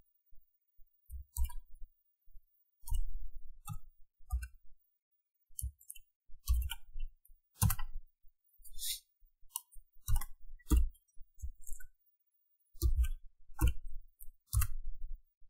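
Computer keyboard keys being typed: a string of short, sharp clicks at irregular spacing, some in quick clusters and some on their own.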